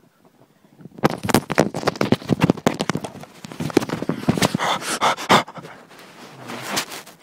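A person making loud, rapid, rough panting and gasping noises right at the microphone, starting about a second in: a mock fit.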